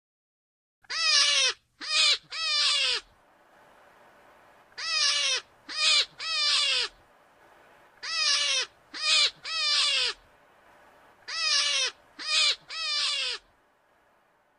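An animal call in groups of three: a long call, a short one, then a long one, each falling in pitch. The same group repeats four times, about every three and a half seconds.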